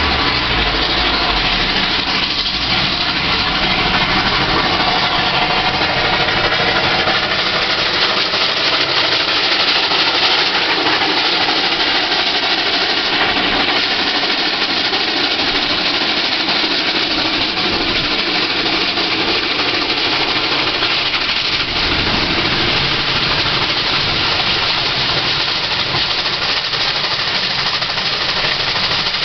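South African Railways Class 19D steam locomotive passing close by with a train of coaches. Its exhaust and running gear make a loud, continuous noise.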